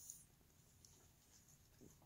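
Near silence: faint room tone, with a brief soft rustle at the very start.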